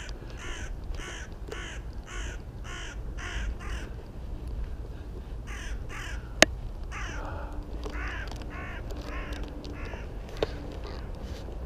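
Crows cawing overhead in a quick run of harsh calls, about two a second, then a pause broken by one sharp click, then another run of caws.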